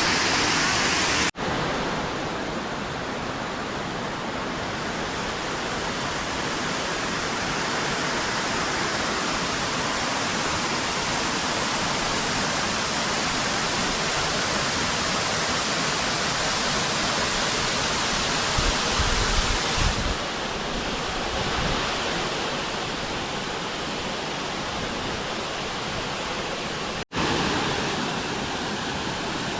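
Steady rush of a waterfall, a dense even roar of falling water. It breaks off for an instant twice, once near the start and once near the end.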